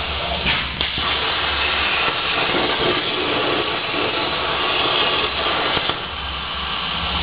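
CNC plasma torch cutting stainless steel sheet: a steady hiss of the arc and compressed air, shifting slightly about six seconds in.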